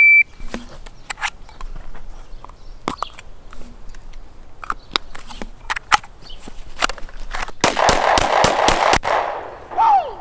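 A PACT shot timer gives one short high start beep, followed by scattered light clicks and snaps. Near the end comes a quick string of sharp cracks, about five a second.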